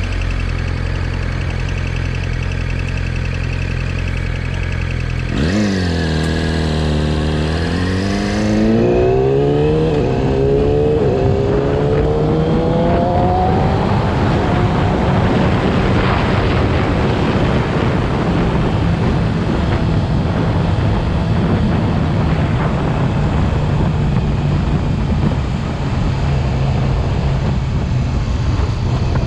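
Yamaha YZF-R6 inline-four engine running steadily. About five seconds in its pitch dips, then climbs over several seconds with a couple of breaks, and it is then held at high revs with a dense, noisy sound. This is the above-5000 rpm range where the owner reports an abnormal sound.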